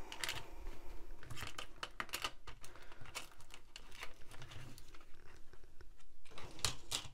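Crinkling of a clear plastic zip bag, with light clicks and taps of small plastic diamond-painting tools (drill pen, tray, wax pot) being handled; two louder crackles near the end.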